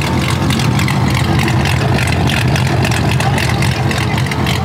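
Lowered pickup's 6.0-litre V8 idling steadily, heard close to its side-exit dual exhaust.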